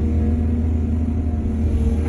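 Heavy diesel engine of earth-moving machinery running steadily: a low, even drone with no change in pitch.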